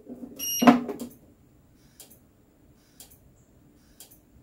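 Nemtek Wizord 4 electric fence energizer giving one short beep as it is switched on, then ticking sharply about once a second as it fires its pulses, its output shorted to the return so it sees an intact fence.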